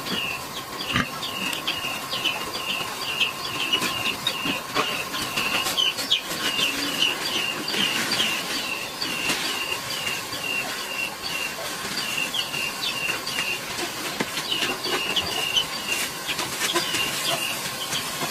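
Outdoor ambience: a steady hiss with a continuous series of short, high chirps, about three a second, from a small animal. A faint steady tone sits under it, and a few light knocks come through.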